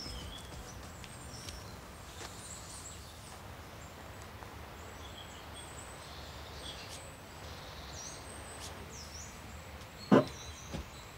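Small birds chirping in the woods over a steady low background rumble, then one loud thump about ten seconds in as the teardrop trailer's rear galley hatch is shut.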